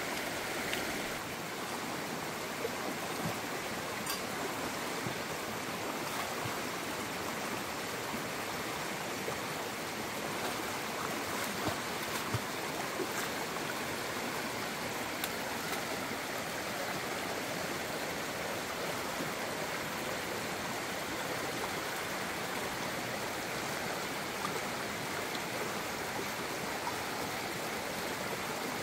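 Steady rush of running water, with a few faint clicks and taps scattered through it.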